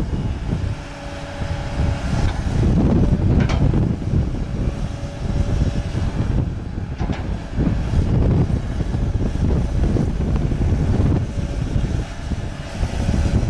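2002 Case CX240 hydraulic excavator's diesel engine running under load as the boom, arm and bucket are worked. A faint whine comes and goes, and there are two sharp knocks, about three and a half and seven seconds in.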